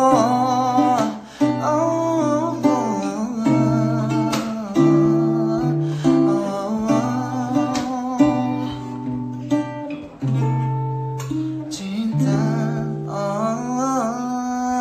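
Acoustic-guitar ballad playing, with held low notes under a sung melody that wavers and glides.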